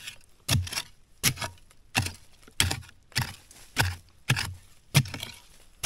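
A hand digging tool chopping repeatedly into root-filled forest soil, about nine strokes in an even rhythm, a bit faster than one a second, each a sharp hit with a dull thud, while digging down to find an insect's burrow.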